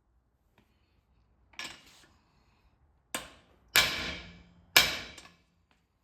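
Hammer striking a race driver, four sharp metal blows driving the front pinion bearing race into a Sterling 10.5 axle housing. The last two blows are the loudest and ring briefly.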